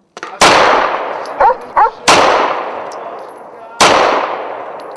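Semi-automatic pistol fired four times, slow single shots about 1.7 seconds apart, each shot echoing and dying away over more than a second; the fourth comes at the very end.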